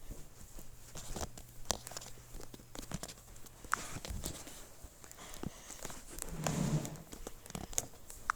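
Donkey sound effect: scattered clicks and rustles, with one short low grunt about six and a half seconds in.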